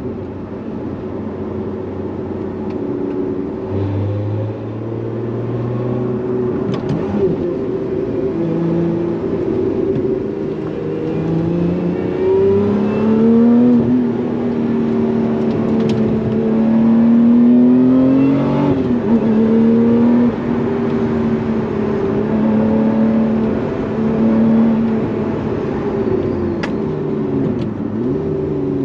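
Lotus Emira's supercharged 3.5-litre V6 accelerating under load. Its note climbs in pitch and drops sharply several times as the manual gearbox is shifted up.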